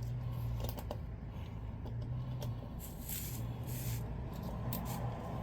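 Small clicks and scratching from hands working at the mini bike tire's valve to let air out, with a couple of brief faint hisses about three and four seconds in, over a steady low hum.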